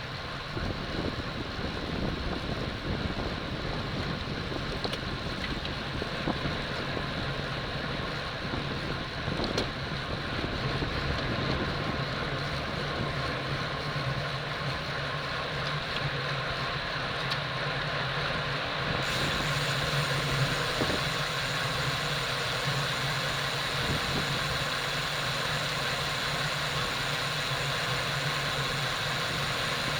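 Steady wind rush and road noise picked up by a bicycle-mounted camera while riding in a bunch, with a constant low hum under it.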